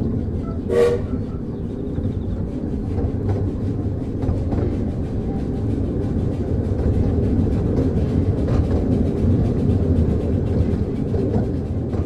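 Miniature steam train of the Ravenglass and Eskdale Railway running, heard from inside an open-sided carriage: a steady rumble with fast clicking of the wheels over the rails. There is a short toot about a second in.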